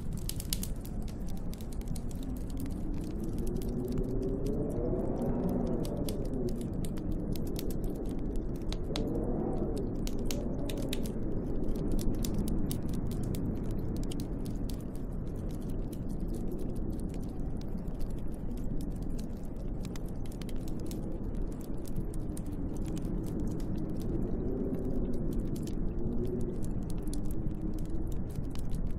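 Storm wind howling in slow gusts over a steady rush, its pitch rising and falling as it swells, most strongly about five seconds in, again near nine seconds and near the end. A wood fire crackles with frequent small pops and clicks.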